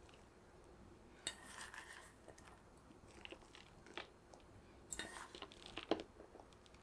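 Crisp baked tart crust and crumble crunching in two short crackly bursts, with a few light taps and clicks between them.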